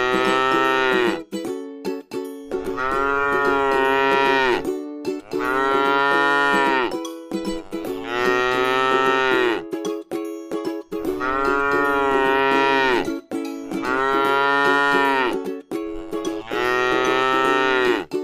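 A cow mooing over and over: about seven long moos, one every two to three seconds, each bending in pitch.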